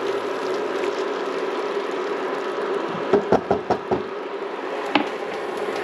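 Black rice cooking off its last water in a nonstick pan on an induction cooktop: a steady hiss with a low hum. About halfway through, a quick run of about five knocks, then one more a second later, from the silicone spatula tapping the pan.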